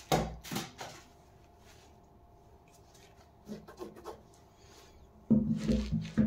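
Handling noise from a pair of sneakers: rubbing and light knocks as gloved hands shift the shoes and set them on a wooden floor. There are a few knocks near the start, faint rustling in the middle, and a louder cluster from about five seconds in.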